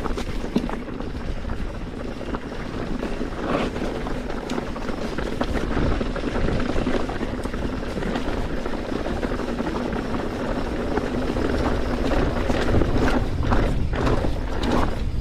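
Mountain bike descending a rocky trail: tyres rolling and crunching over loose rocks with the bike rattling, and wind buffeting the microphone. A few sharper clatters stand out near the middle and again near the end.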